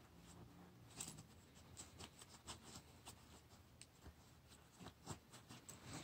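Faint rustling and light clicks of small items being handled and pushed into the pockets of a canvas messenger bag.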